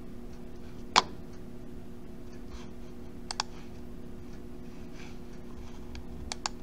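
Computer mouse clicks: one sharp click about a second in, then two quick double clicks, over a faint steady electrical hum.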